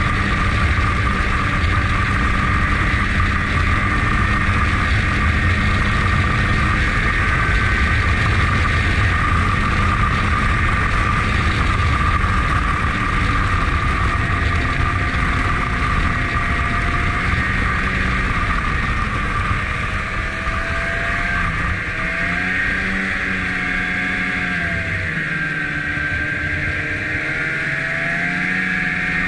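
Snowmobile engine running under way, heard from the rider's seat: steady at speed at first, then about halfway through the pitch rises and falls as the throttle eases on and off and the sled slows.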